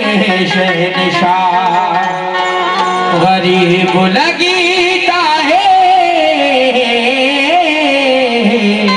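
Qawwali music: a male lead voice sings long, sliding melismatic phrases over sustained harmonium chords.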